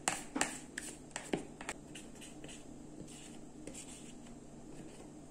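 Spatula scraping and clicking against the bowl while melted chocolate is poured into a mould: a run of sharp clicks and scrapes in the first two seconds, then only faint rubbing.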